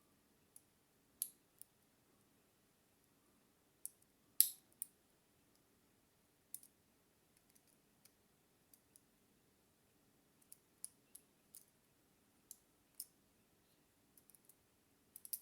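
Light, irregular metallic clicks and ticks from a homemade pick and tension wrench working the pin tumblers inside a Master Lock 140 padlock as it is being picked. The loudest click comes about four and a half seconds in.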